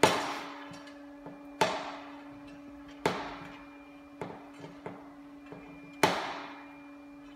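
Four loud, sharp knocks roughly a second and a half apart, each ringing out for about a second, with lighter clicks between them over a steady hum.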